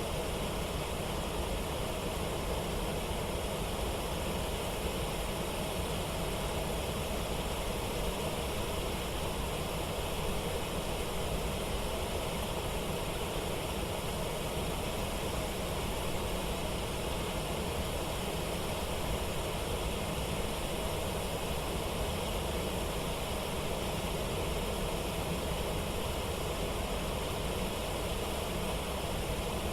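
Steady rush of a river waterfall and rapids, an even, unbroken roar of water.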